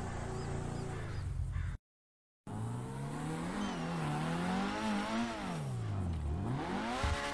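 Sports car engines. One runs steadily, then cuts off to dead silence for under a second. A second engine then revs up and down in pitch, drops very low and climbs quickly again near the end.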